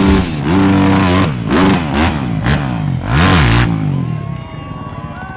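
Dirt-bike engine revving hard, its pitch rising and falling several times in quick succession. It drops away about four seconds in.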